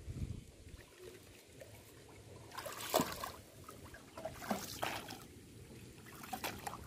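Wooden paddle dipping and pulling through river water beside a small wooden boat, three strokes roughly a second and a half apart, each a splash with dripping water.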